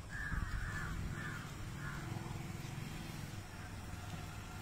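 A crow cawing several times in the first two seconds, over a low steady rumble.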